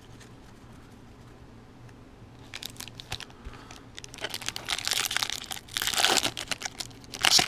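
Plastic wrapper of a Topps baseball card jumbo pack crinkling and being torn open. It starts about two and a half seconds in and gets louder and busier toward the end.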